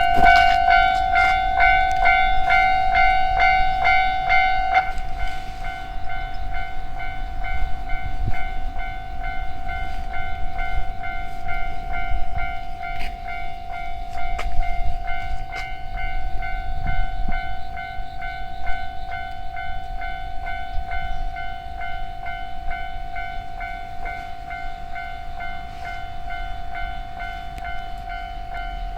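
Japanese railway level-crossing alarm ringing its repeating electronic bell, about two to three strikes a second, louder and sharper for the first five seconds, while a train rumbles past.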